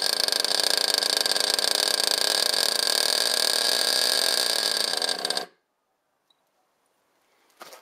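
GS Storm nitro RC buggy's small glow engine running with a steady high-pitched buzz, then stopping abruptly about five and a half seconds in.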